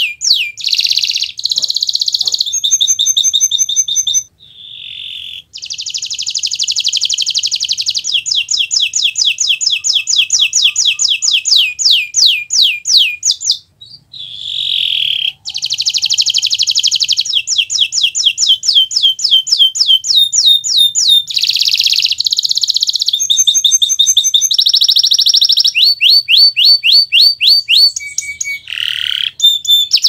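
Domestic canary singing a long song of rapid trills: each trill is a fast run of identical down-sweeping notes, and the bird switches to a new trill every second or two, with short breaks about four and fourteen seconds in.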